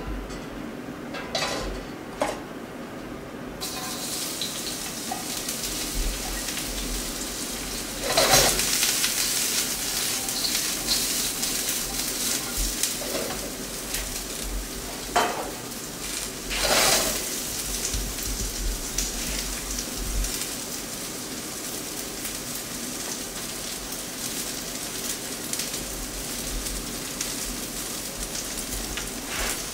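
Julienned vegetables sizzling in hot olive oil in a wok over a gas burner. The sizzle starts about four seconds in and swells loudly a few times, about a third and about halfway through.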